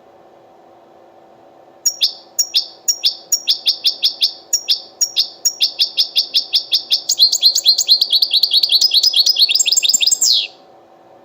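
European goldfinch singing. A series of sharp, high, evenly repeated notes starts about two seconds in, quickens into a rapid trill and ends on a falling note near the end, over a faint steady hum.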